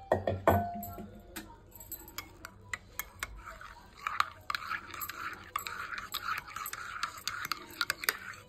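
A steel spoon whisking milky coffee fast in a ceramic cup, clinking and scraping against the sides as the coffee froths. Two ringing clinks in the first second; the whisking gets steady and dense about four seconds in and stops abruptly near the end.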